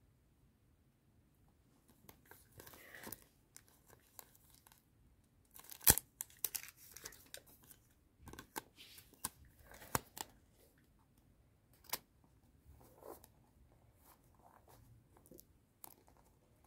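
A handmade paper sticker plaster being peeled from its backing and pressed onto a notebook page: faint crinkling and tearing of paper, starting about two seconds in, with a few sharp clicks.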